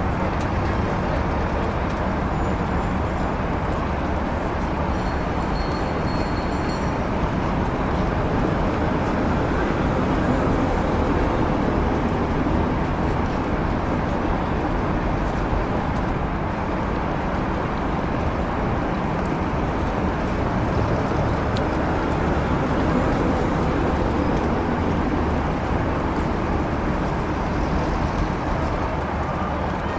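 City street ambience of the 1930s: a steady mix of motor traffic and street bustle.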